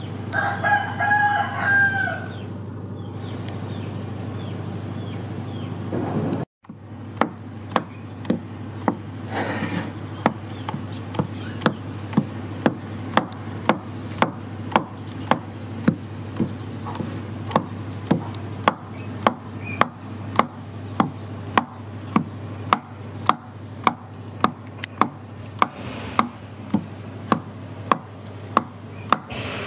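A rooster crows once at the start. After a few seconds, a wooden pestle pounds red chilies in a wooden mortar, evenly spaced knocks at about two strikes a second that run on steadily.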